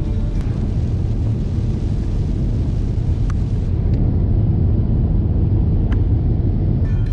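Steady, loud low rumble with a few faint clicks about half a second, three seconds and six seconds in.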